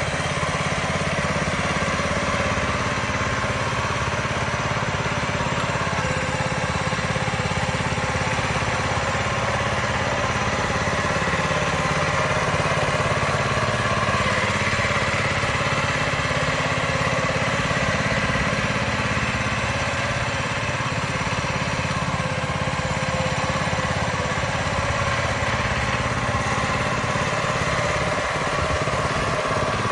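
An engine running steadily at a constant speed, a continuous mechanical drone with no change through the stretch.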